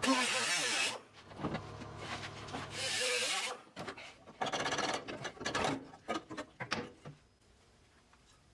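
Workshop tool and handling noises on a car body: short stretches of rubbing and scraping with quick rapid ticking, dying away to quiet near the end.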